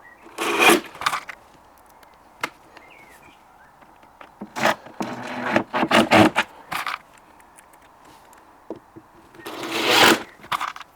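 Scraping and knocking of parts being handled and fitted during cabinet assembly, in three bursts, the last swelling and cutting off sharply, with a few single clicks between.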